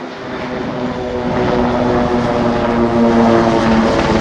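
Formation of Pilatus PC-7 turboprop trainers flying past, a steady propeller-and-engine hum with a few clear tones that grows louder as the aircraft approach.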